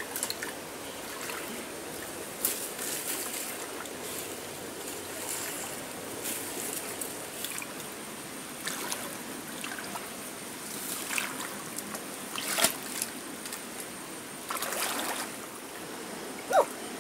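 Shallow muddy stream water stirred by a wading person groping with his hands for fish: irregular small splashes and sloshing over a steady trickle of water, with a few sharper splashes scattered through.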